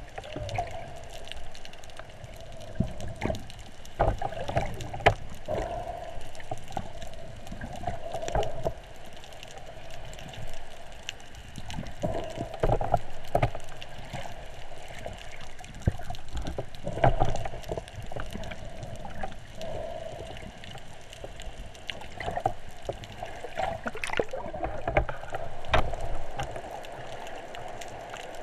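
Muffled underwater sound picked up by a camera on a speargun: a steady wash of water movement broken by irregular knocks and clunks as the gun and shooting line are handled.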